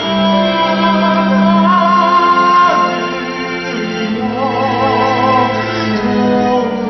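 Male voice singing a musical-theatre song over sustained instrumental accompaniment, with a long held note and then a stretch of wavering vibrato.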